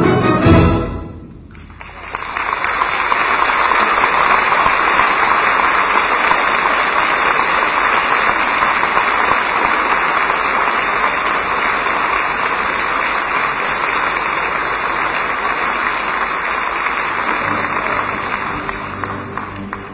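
An orchestra stops on a final chord about a second in, then an audience applauds steadily, thinning out near the end.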